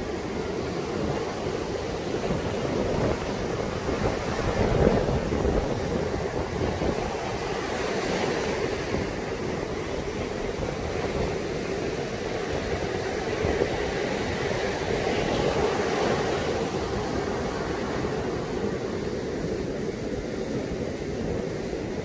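Heavy typhoon-driven surf breaking and washing up a sandy beach in a steady rush, with wind buffeting the microphone in a low rumble.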